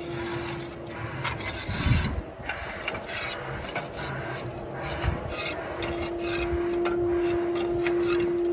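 Clay roof tiles being handled and laid: repeated scraping of tile against tile, with sharp clicks and a heavier knock about two seconds in. A steady background hum comes in near the start and again over the last few seconds.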